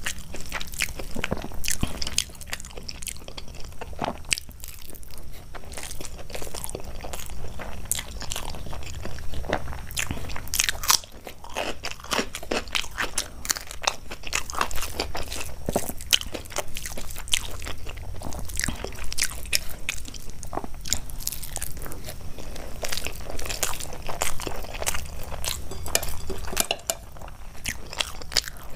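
Close-miked eating: a person biting and chewing food, with frequent, irregular sharp crunches.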